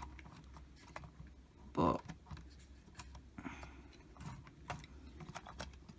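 Faint, scattered small clicks and light taps as a model locomotive and tender are pushed by hand along a short length of track, over a low steady hum.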